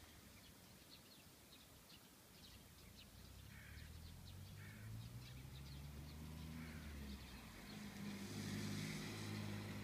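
A low engine running faintly, its pitch shifting and growing louder over the second half. Birds are calling.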